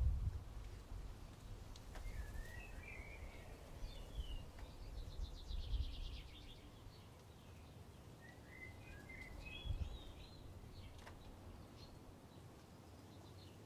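A small songbird sings short, chirpy warbling phrases, with a rapid trill about five seconds in and more phrases a few seconds later, over an intermittent low rumble.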